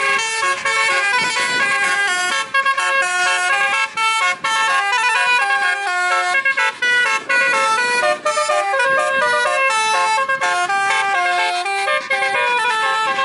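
Telolet horn, a multi-tone musical vehicle horn, playing a quick melody: several horn notes sound together and step up and down in pitch a few times a second, nearly without a break.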